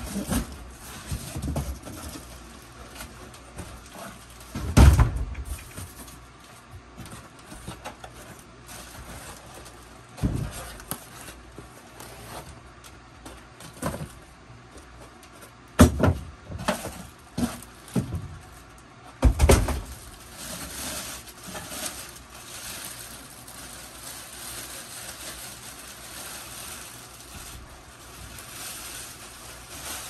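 Unboxing noise: a cardboard box and molded pulp packing being handled, with several heavy thumps as the heater is pulled out and set on the bench. From the middle on, a plastic bag crinkles and rustles as it is pulled off the heater.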